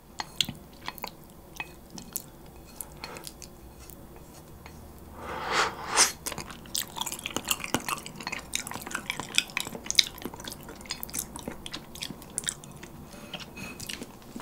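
Wooden chopsticks clicking and scraping on a ceramic plate as the last saucy noodles are pushed from the tilted plate into the mouth, with a longer slurp about five seconds in. Then wet chewing and lip smacks with small clicks.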